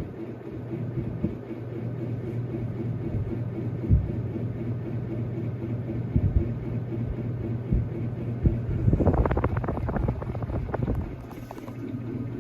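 Antique Emerson Fern Leaf ceiling fan running: a steady motor hum with a rhythmic pulsing and a rush of air from the blades, which are off balance. A few single knocks, and a quick run of clicks and knocks about nine seconds in.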